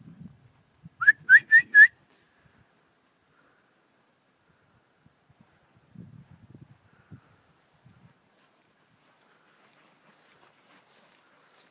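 A person whistling four quick, rising notes about a second in, calling a dog back.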